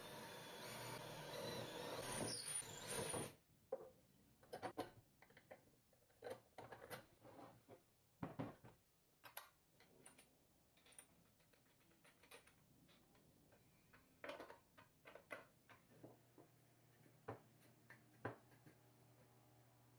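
Workshop handling sounds: about three seconds of loud, dense noise at the start, then scattered light clicks and knocks as tools and parts are handled on the bench.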